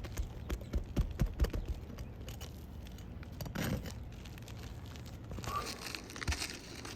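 Asphalt roof shingles being lifted and handled: a quick run of sharp knocks and taps in the first two seconds, then scraping, tearing and crinkling.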